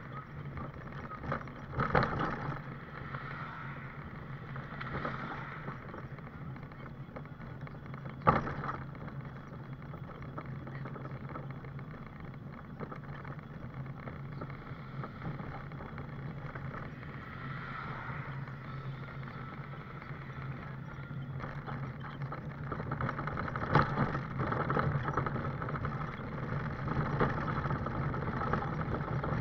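A scooter running along a paved path: a steady hum and rattle, with sharp knocks about 2, 8 and 24 seconds in as it goes over bumps.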